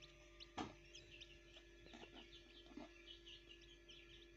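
Northern bobwhite (Virginia quail) chicks peeping faintly, many short high chirps in quick succession, over a faint steady hum; a single soft tap about half a second in.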